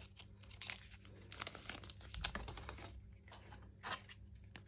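Plastic wrapper of a pack of trading cards crinkling and tearing as it is opened by hand, in a run of short, faint crackles.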